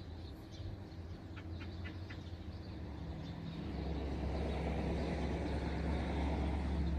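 Car engine running with a low steady hum, growing louder about halfway through.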